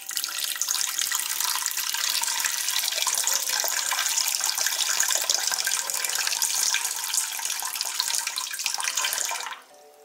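Water poured in a stream from a glass measuring cup into an empty stainless steel mixing bowl, splashing steadily and stopping suddenly near the end. Soft background music underneath.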